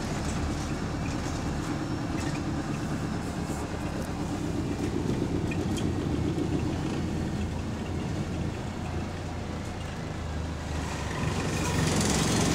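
Inside a single-deck bus on the move: the engine runs with a steady low drone, and loose parts and interior fittings rattle throughout. The noise gets louder about a second before the end.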